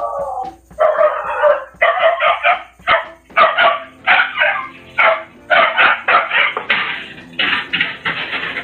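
A dog barking over and over, short barks coming in quick runs of two or three.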